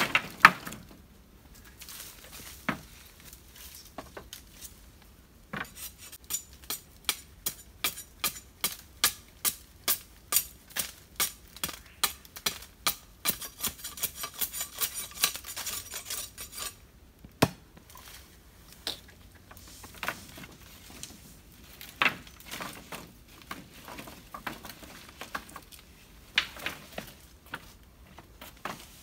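Hand-tool work on wood: a run of quick, evenly spaced strokes, about two a second, lasting some ten seconds, then scattered single knocks.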